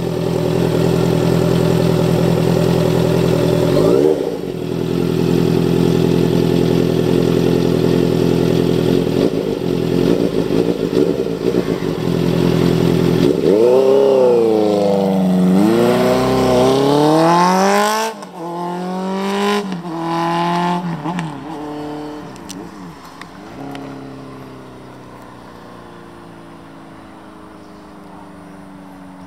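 Honda CBR650F's inline-four engine through an SC-Project aftermarket exhaust, running steadily for about 13 seconds, then revved in several rising and falling blips. Near the end it is quieter and its pitch falls slowly.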